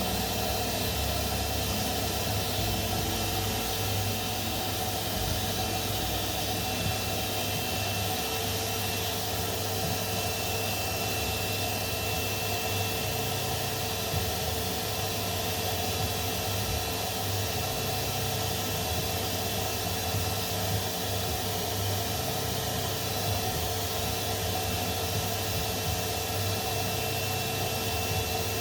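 A motor-driven machine running steadily: an even hissing noise with a constant thin whine through it, unchanging throughout.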